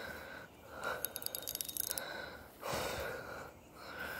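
A person breathing close to the microphone in soft, repeated puffs about once a second, with light clicking and rustling in the middle.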